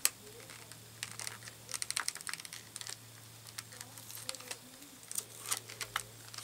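Light, irregular clicks and crinkles of packaging being handled, bunched about two seconds in and again past the four-second mark.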